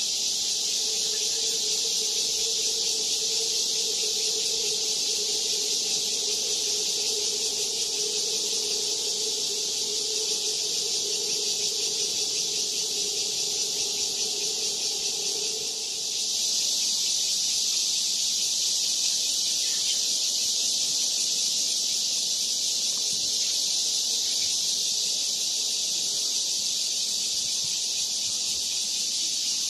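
Steady, dense chorus of insects buzzing. Under it, a steady low hum fades out about halfway through.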